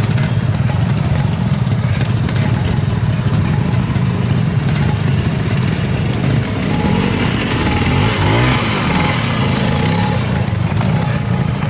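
Classic trial motorcycle engine running at low revs as the bike is ridden slowly over rough ground, with the revs rising and falling in short throttle blips around eight to nine seconds in.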